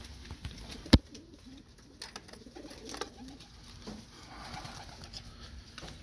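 Domestic pigeons cooing softly, with one sharp knock about a second in.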